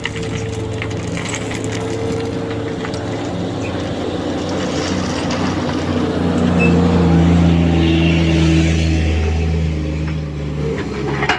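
JCB 3DX backhoe loader's diesel engine running steadily, revving up and growing louder in the middle, then settling back near the end.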